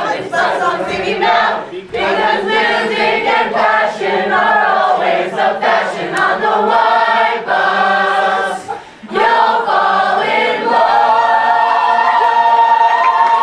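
A group of voices singing a song together, ending on one long held chord in the last few seconds, its top note stepping up just before the end.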